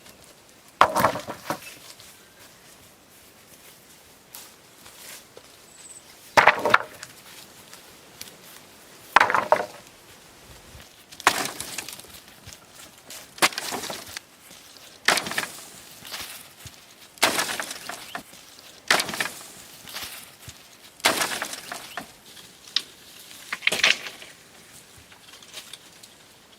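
Repeated strikes of a hand tool, roughly one every two seconds, each a sharp hit with a short scraping tail, like chopping or digging.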